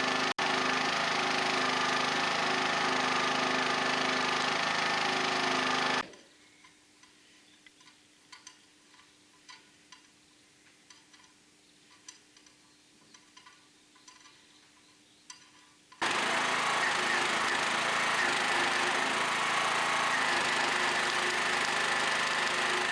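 Steady, even machine noise that cuts off abruptly about six seconds in. A quiet stretch follows with faint scattered clicks, and then the same noise starts again just as abruptly about ten seconds later.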